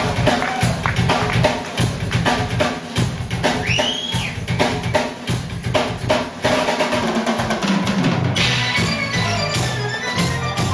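Live progressive rock band playing loud: a drum kit driving hard with bass drum and snare strikes over a low bass line, with keyboard and bass notes standing out more clearly near the end. A short whistle-like glide rises and falls about four seconds in.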